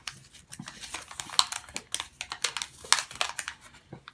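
A folded paper instruction sheet being unfolded and handled, giving irregular crinkling, crackling rustles.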